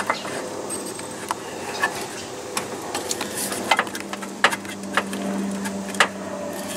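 Irregular sharp metal clicks and knocks as a replacement alternator is wiggled against its engine mounting bracket while being lined up for its bolt.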